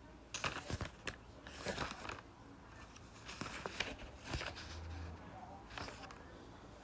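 Packaging being handled as a beauty subscription box is opened: irregular rustling and crinkling in bursts, with a few light knocks.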